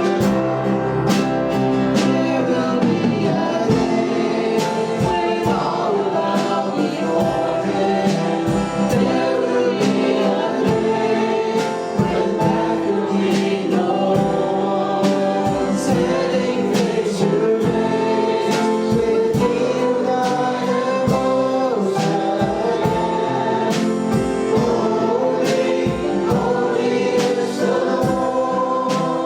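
Worship band and a group of singers performing a gospel-style praise song, sung voices over instruments with a steady drum beat.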